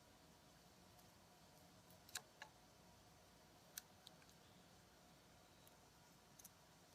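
Near silence broken by a few faint, sharp clicks and taps, about five in all, from a razor blade and small balsa-wood pieces being handled on a work surface.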